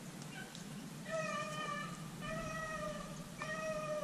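Beagles baying on a rabbit's trail: three drawn-out bawls, each steady in pitch, about a second apart, the hounds giving voice as they run the rabbit through the brush.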